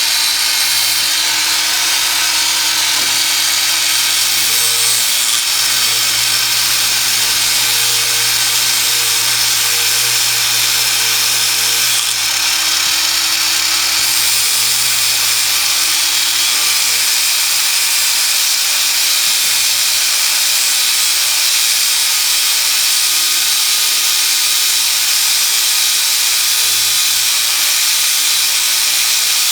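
Cordless angle grinder running steadily at full speed, grinding the pin off a roller chain link, a continuous whine over a high grinding hiss.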